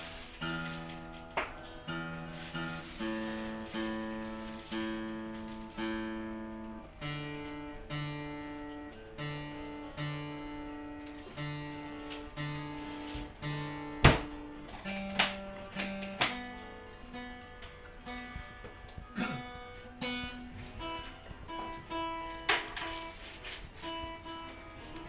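Acoustic guitar strumming chords in a steady rhythm, each chord ringing and fading, with a single sharp, loud stroke about halfway through and more sharply accented strokes after it.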